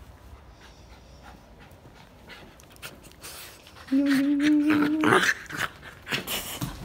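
A puppy mouthing a hand in play gives one drawn-out vocal sound about four seconds in, among scuffling and rustling on bedding.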